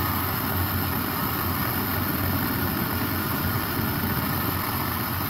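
Propane torch flame burning steadily: a constant rushing hiss with a low rumble underneath.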